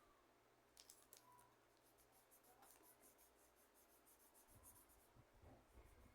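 Faint, rapid scratching strokes of painting on a plastic candy package, with a few soft low bumps of handling near the end.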